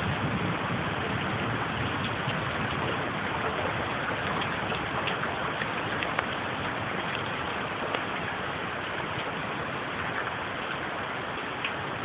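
Steady hiss of rain in a thunderstorm, with a few sharp ticks scattered through. The last of a low thunder rumble dies away at the very start.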